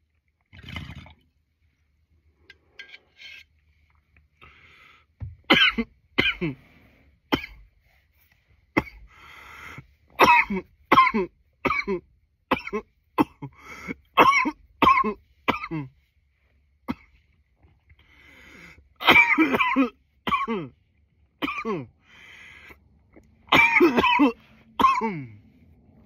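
A man coughing in repeated fits: a few faint sounds first, then from about five seconds in a long run of short, sharp coughs in quick succession, with the heaviest, loudest bursts in two clusters near the end.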